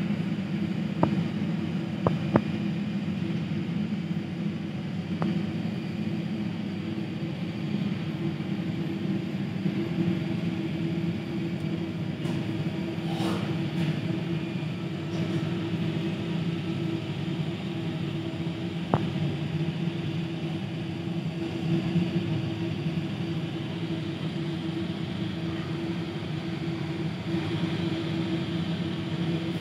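Steady jet aircraft rumble with a constant droning hum, muffled through terminal window glass, flat in level throughout, with a few sharp clicks scattered through it.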